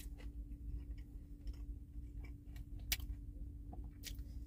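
A man chewing a mouthful of chicken biscuit, with scattered small mouth clicks and one sharper click about three seconds in, over a steady low hum inside the car.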